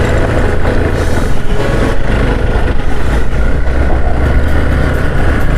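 Hero XPulse 200 4V motorcycle's single-cylinder engine running steadily under way, with a heavy low rumble and no clear revving.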